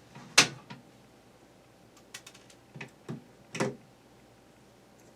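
Wire strippers clicking and snapping as insulation is stripped from a wire: a sharp snap about half a second in, a few lighter clicks, then another snap about three and a half seconds in.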